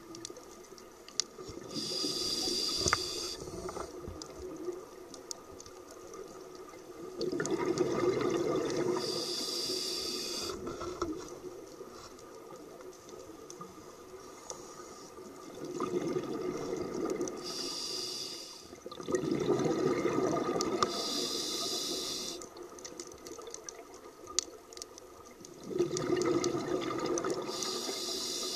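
Scuba diver breathing through a regulator underwater: a sharp hiss on each inhalation and a rumbling burst of exhaled bubbles on each exhalation. Slow breaths, about four in all.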